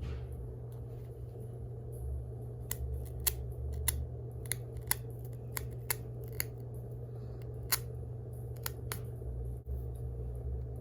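Scissors snipping at the sealed box's packaging: a run of sharp, irregular clicks, with a steady low hum underneath.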